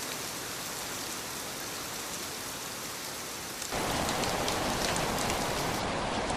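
Steady rain falling. About three and a half seconds in it switches abruptly to louder, heavier rain, with separate drops striking close by.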